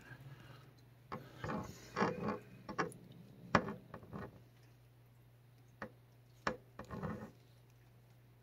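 A cat biting and tugging at a knitted cotton work glove held out on a stick: irregular clicks, knocks and short rustles, bunched in the first half and again near the end, over a steady low hum.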